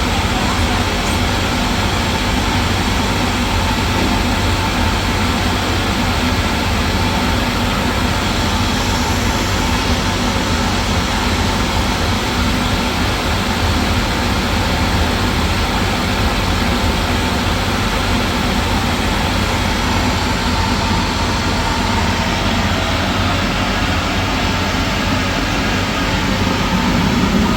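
Steady, loud running of a machine or engine with a low hum, unchanging throughout.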